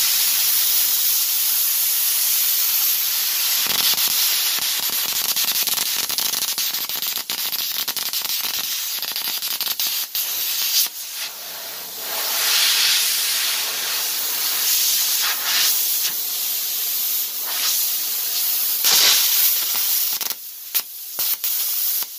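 Velt Cut 60 air plasma cutter cutting thick steel: a steady, loud hiss of the plasma jet and arc, broken by a few brief drops near the end.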